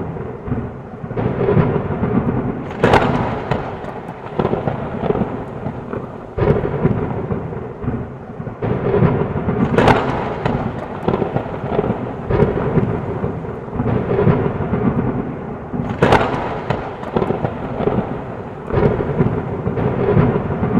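Heavy rain falling steadily under rolling thunder, with three sharp thunder cracks spread through it.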